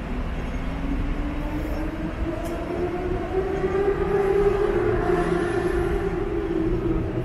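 Hong Kong double-decker electric tram's traction motor whining as the tram picks up speed. The pitch rises over the first four or five seconds and then holds steady, over a low rumble.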